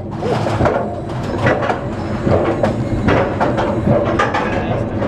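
Roller coaster train rattling and clattering along its track: a dense, irregular run of knocks over a steady rumble.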